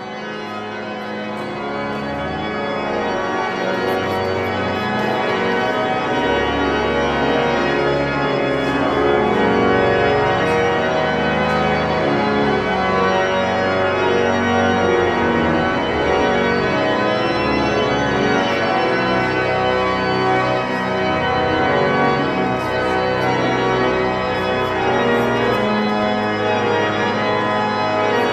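Organ playing held chords, swelling in volume over the first few seconds and then sounding steadily.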